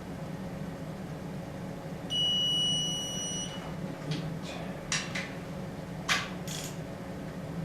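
A single steady electronic beep lasting about a second and a half, followed by several short sharp clicks, over a steady low hum.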